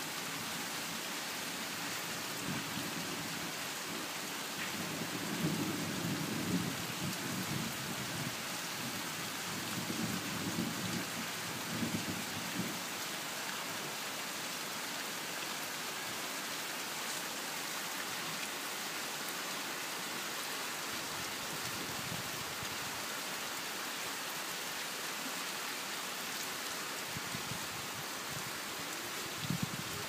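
Steady rain falling on leaves and the ground, an even hiss throughout. Low rumbling swells rise over it about three to eight seconds in, again around ten to thirteen seconds in, and briefly near the end.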